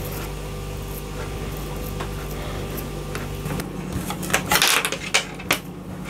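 A steady hum with faint ticks, which stops suddenly about three and a half seconds in. Then come sharp clicks and rustling as a coaxial cable fitted with connectors is handled on a table.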